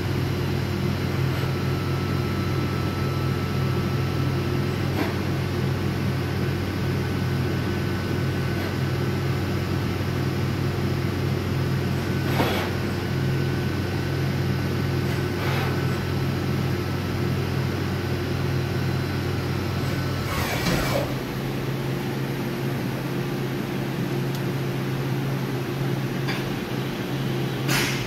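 YCM NXV 560A CNC vertical machining center running under power, a steady mechanical hum with a faint high whine and a few light clicks. About twenty seconds in, the whine and the deepest part of the hum stop with a short burst of noise, and the machine carries on at a lower hum.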